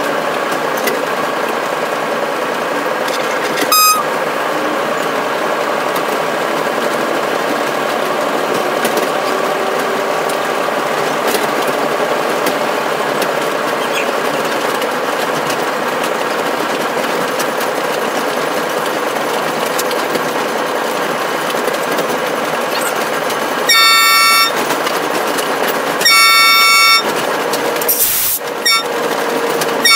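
Steady drone of a locomotive heard from inside its cab. A brief horn toot comes about four seconds in. Near the end the horn sounds long, long, short, long, the grade-crossing warning signal.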